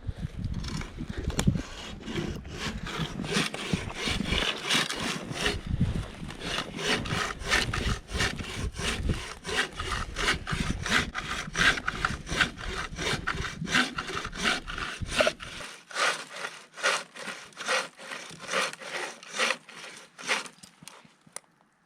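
Hand saw cutting through a tree trunk for firewood, in steady back-and-forth strokes at about two to three a second that fade near the end.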